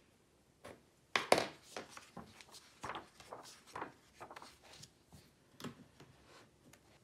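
A paper sketchbook page being turned and pressed flat by hand on a wooden desk: a string of short rustling and handling sounds, the loudest a little over a second in.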